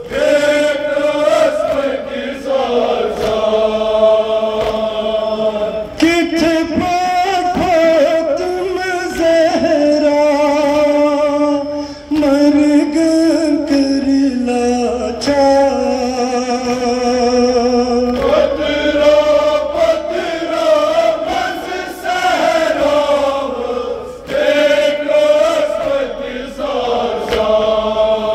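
Kashmiri noha, a Shia lament for Imam Husain, sung by men: a lead reciter sings through a microphone while a group of mourners chant with him. It runs in long melodic phrases with short breaks between them.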